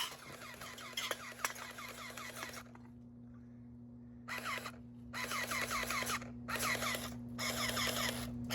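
Electric water gun firing in several bursts: its pump gives a rapid, even pulsing that stops for short pauses between trigger pulls, with one longer pause about three seconds in.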